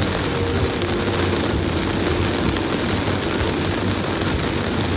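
Steady hiss of heavy rain over a constant low rumble of a vehicle running on the road.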